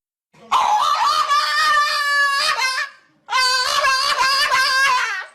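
Two long, wavering high-pitched cries, each about two and a half seconds, with a short break between them.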